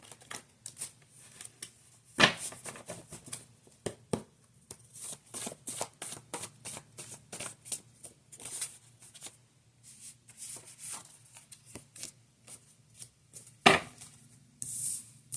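A deck of tarot cards being shuffled and handled: a run of quick crisp riffles and flicks, with two louder knocks of cards on a table, about two seconds in and near the end.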